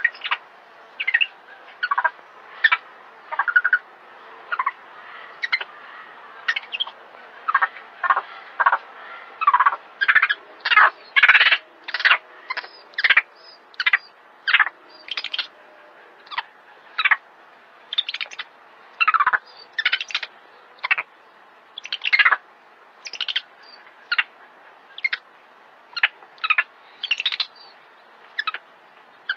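Young macaque crying out over and over in distress as a snake coils around it: short high cries, about one to two a second, loudest in the middle of the stretch.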